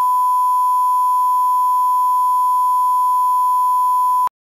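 Steady 1 kHz line-up test tone, the reference tone that runs with SMPTE colour bars, cutting off suddenly near the end.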